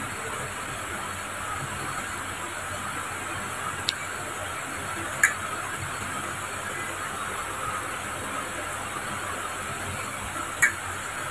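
Steady hiss with three short, sharp clicks, about four, five and ten and a half seconds in.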